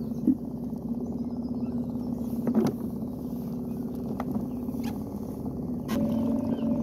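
An engine running steadily, with a few light knocks over it. Near the end it gets louder and a higher steady tone joins.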